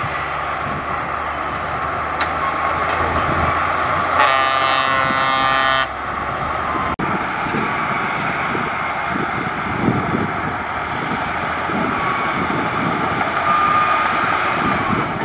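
Heavy diesel engines of a crawler bulldozer and a dump truck running steadily at work. A vehicle horn sounds once, for under two seconds, about four seconds in.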